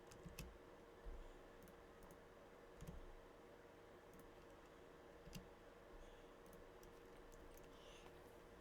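Faint, scattered clicks of a computer mouse and keyboard at irregular intervals over a low steady hum.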